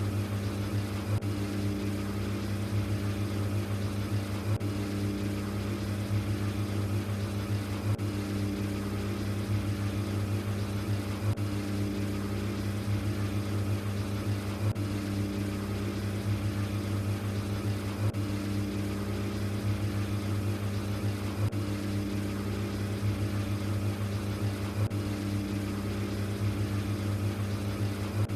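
LG ThinQ washing machine running on its Quick 15 cycle: a steady motor hum with a low tone that swells and fades every few seconds.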